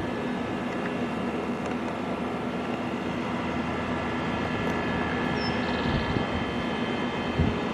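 Steady mechanical drone with a constant low hum and a few fixed higher tones; a short thump near the end.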